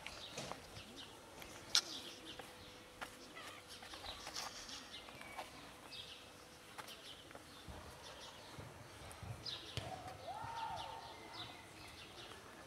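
Cats crunching dry kibble, heard as many small irregular clicks. A short call that rises and then falls comes about ten seconds in.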